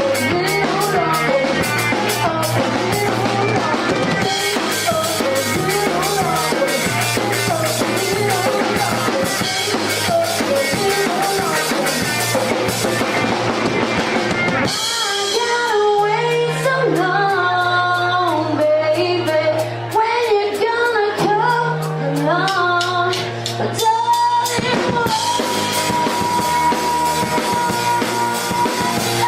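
Live pop-rock band playing a song with drum kit, bass and a singer. About halfway through the band drops to a sparser section with lighter drums under the voice. Near the end the full kit comes back under a long held note.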